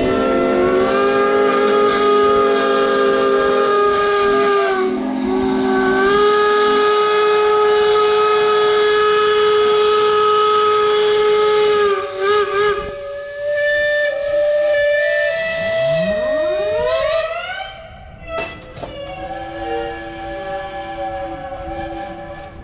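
Several steam whistles blowing at once, a loud chord of overlapping steady tones with some whistles cutting in and out. Past the middle, one whistle sweeps upward in pitch. After that the chorus drops off and a few quieter whistles keep sounding.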